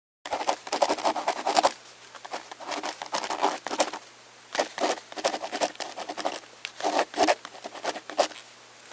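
Rapid scratching strokes in several runs, with short pauses about two and four seconds in.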